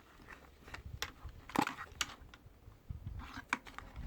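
Hands handling a broken clock: scattered light clicks and knocks, the sharpest about a second and a half in.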